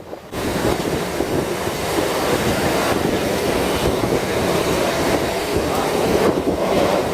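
Steady rumbling noise of a moving vehicle.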